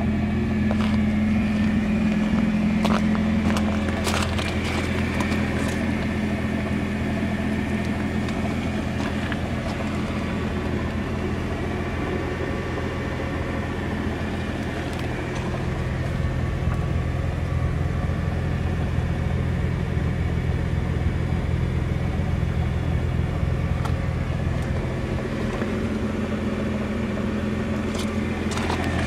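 Nissan GT-R's 3.8-litre twin-turbo V6 idling steadily, with a few short clicks and knocks in the first few seconds and again near the end.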